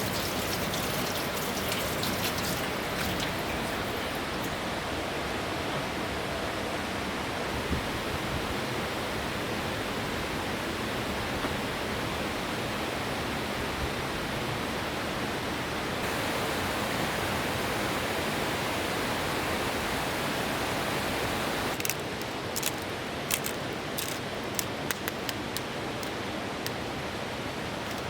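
Steady rushing of a mountain river. From about two-thirds of the way through, a run of light clicks and taps over it.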